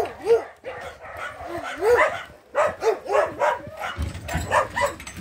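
A dog barking repeatedly in short, irregular barks. A low rumble comes in near the end.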